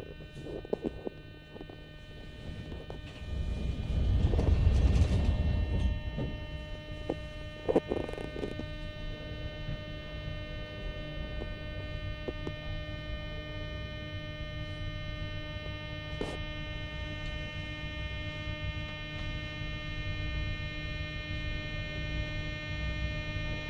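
Metro car's steady electrical hum, several pitches held together over a low rumble. The rumble swells louder for a couple of seconds near the start, with a few light knocks later.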